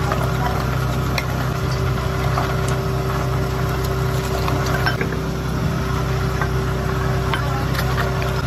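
Electric meat mincer running with a steady hum as raw chicken, green chillies and spice paste are pressed down its feed tube with a hand pusher and ground into kebab mince. Faint clicks and knocks come now and then.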